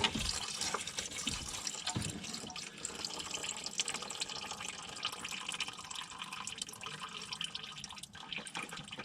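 Liquid trickling and dripping: a steady patter of many small drops.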